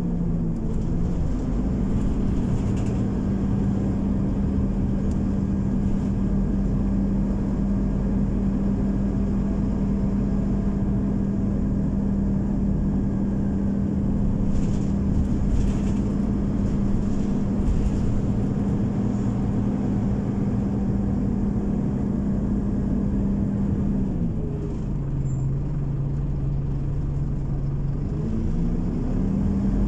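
Scania OmniCity city bus heard from inside while under way: a steady engine drone with a strong low hum. About three-quarters of the way through, the hum drops in pitch for a few seconds, then climbs back up.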